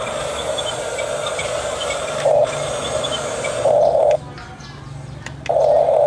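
Huina 1569 RC bulldozer's electric track motors and gearboxes whining as it crawls over dirt. The whine swells briefly twice, stops for about a second past the middle with a few faint clicks, then starts again near the end.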